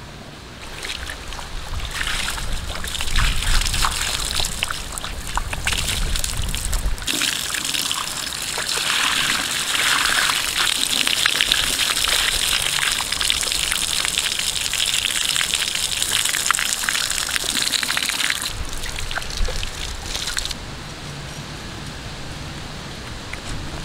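Water poured in a thick stream onto a large stingray's skin, splashing on the fish and the woven mat. It starts about a second in and stops abruptly a few seconds before the end.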